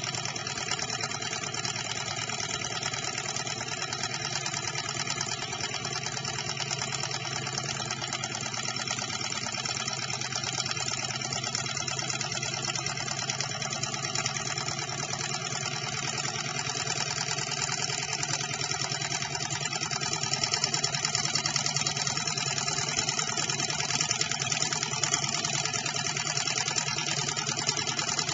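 Model Stirling engine running fast, its piston and linkage making a rapid, steady mechanical clatter, a little louder over the last third.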